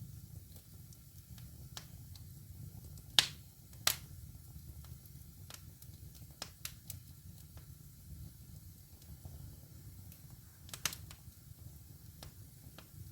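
Wood fire in a fireplace crackling: irregular sharp pops and snaps over a low steady rumble, with two loud pops about three and four seconds in and a burst of crackles near the end.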